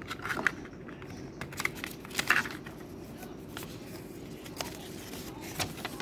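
Clear plastic blister packaging and a folded paper instruction leaflet being handled: a run of crinkles, clicks and taps, busiest in the first two and a half seconds, over a steady low background hum.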